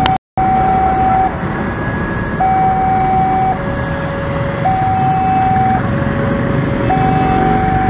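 Railway level-crossing warning alarm sounding a steady two-tone signal that alternates between a higher and a lower tone, each about a second long, as the barrier arms come down. Motorcycle and car traffic runs underneath.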